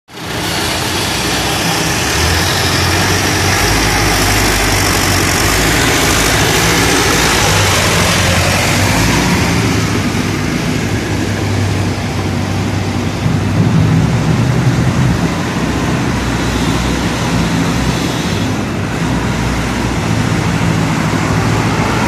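Front-loader tractor's engine running steadily, with a brief rise in level about two-thirds of the way through.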